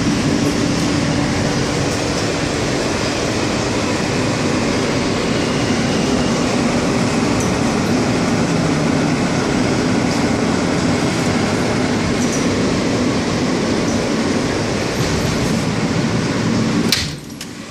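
Steady rumble and hum of a New York City subway train, heard from inside an R160 car with another train on the next track. The sound drops away abruptly near the end.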